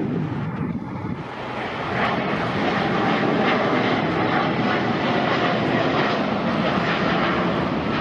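Jet engines of a departing Boeing 787 Dreamliner at takeoff thrust during its climb-out: a steady jet noise that grows louder about two seconds in.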